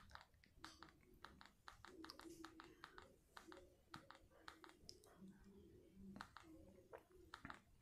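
Near silence with faint, irregular clicks, several a second: TV remote buttons being pressed to scroll through a smart TV menu.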